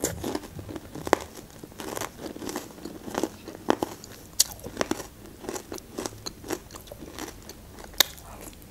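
Close-miked chewing of a crunchy fried bite: irregular crisp crunches and wet mouth clicks.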